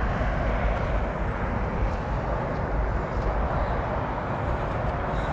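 Steady roar of motorway traffic, a continuous rumble and hiss without distinct passing vehicles.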